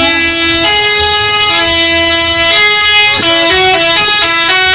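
Multi-tone telolet horn on an Efisiensi bus, playing a loud tune of steady held notes that step between pitches, the notes getting shorter and quicker near the end.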